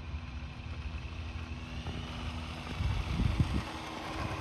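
Losi LXT RC truck running on its XTeam 3650 5400kv brushless motor, over a steady low rumble of wind on the microphone. There are a few knocks about three seconds in.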